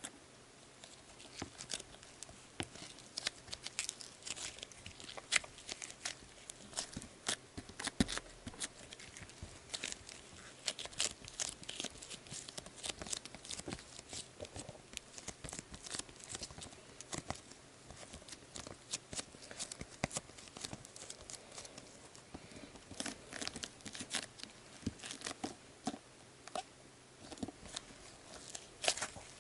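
Soft putty-like slime studded with small foam beads, kneaded, stretched and folded by hand, giving many small irregular crackles, pops and tearing sounds throughout.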